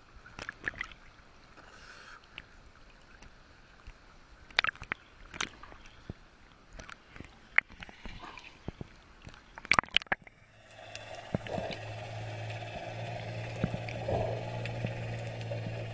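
Sea water lapping and splashing against a camera held at the surface, with scattered sharp splashes. About ten seconds in, the camera goes under and the sound turns to a steady, muffled underwater wash with a low hum.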